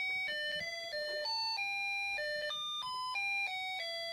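Snap Circuits music IC playing an electronic tune through the kit's small speaker: a steady string of beeping notes, each a fraction of a second long, switched on by the sound-activated switch.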